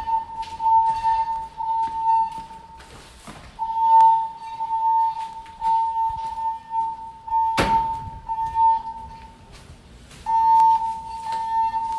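A fire alarm voice-evacuation system sounding its alert tone between spoken evacuation messages: a steady high tone that breaks off and resumes several times. A single sharp knock cuts in about two-thirds of the way through.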